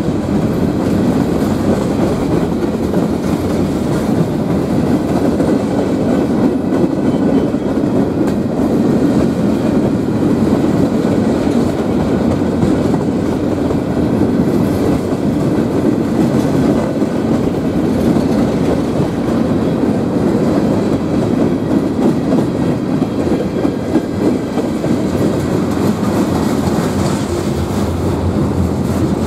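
Freight train cars rolling past at close range, their steel wheels on the rails making a steady rolling noise as gondolas and then bulkhead flatcars go by.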